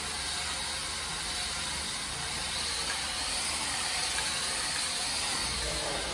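WPL D12 1:10 RC pickup truck's brushed electric motor and gears whirring steadily as it drives and turns on a hard laminate floor.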